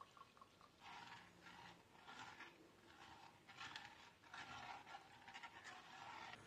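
Red silicone spatula stirring milk in a saucepan, its strokes brushing and scraping around the pan in a quiet, repeated rhythm.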